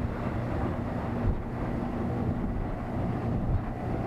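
115 hp outboard motor running steadily at planing speed, mixed with wind on the microphone and a few low thumps of the hull on the water.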